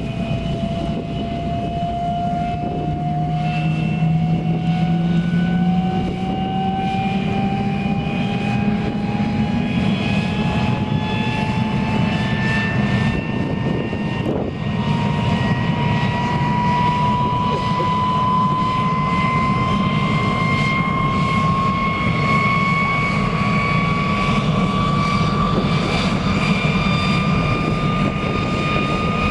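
MiG-15 UTI's centrifugal-flow jet engine running on the ground, with a whine rising slowly and steadily in pitch as the engine spools up, over a steady rumble.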